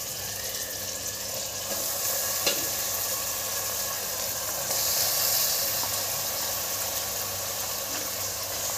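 Raw minced mutton sizzling as it fries in hot oil with onions and ginger-garlic paste in a steel pot, having just been added. There is one sharp tap about two and a half seconds in, and the sizzle grows louder for a moment around five seconds.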